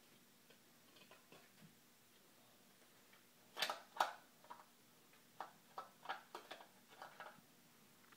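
Light clinks and knocks of plastic and steel kitchen cups being handled and set down by a toddler. There is a louder pair of knocks about three and a half seconds in, then a scatter of lighter taps.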